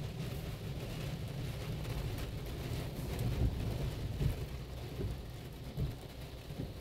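Spinning foam brushes of a PDQ ProTouch Tandem soft-touch car wash scrubbing over the windshield and body, heard from inside the car as a dense low rumble with water spattering on the glass and a few irregular thumps.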